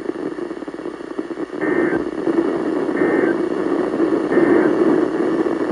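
Weather radio receiver hiss, broken by three short buzzy two-tone data bursts a little over a second apart. These are the EAS end-of-message code, signalling that the alert broadcast is over.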